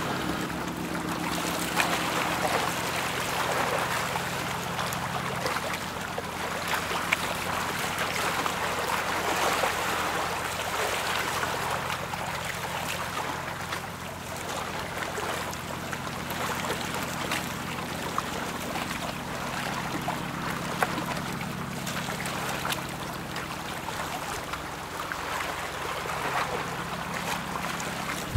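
Bow wave of a passing tanker rushing and splashing against the hull, over a steady low hum from the ship. A few brief sharp ticks stand out.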